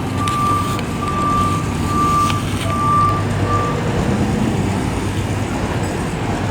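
A truck's reversing alarm beeping: a single high steady beep repeating a little more than once a second, which stops about four seconds in. Street traffic rumbles underneath.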